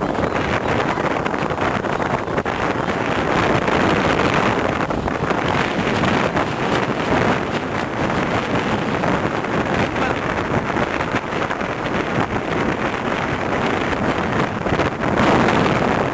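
Steady wind buffeting the microphone on the open deck of a small sailboat under way, with indistinct voices of people talking underneath.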